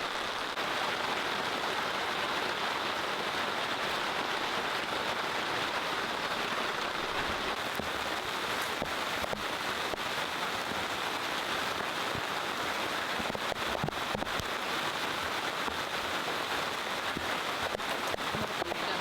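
Steady rain falling, with scattered individual drops tapping.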